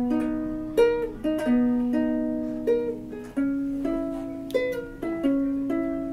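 Ukulele played slowly, about eight plucked chords in turn, each ringing and fading before the next.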